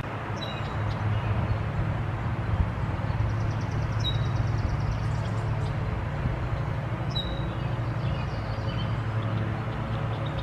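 Steady outdoor background noise, a low rumble under a hiss, with three short high bird chirps spread through it and a quick ticking trill about three seconds in.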